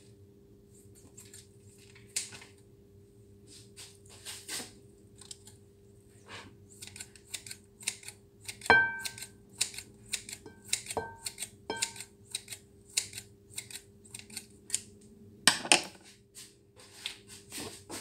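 Kitchen scissors snipping through slices of ham: an irregular run of short, sharp snips and clicks, a few with a brief metallic ring, over a steady low hum.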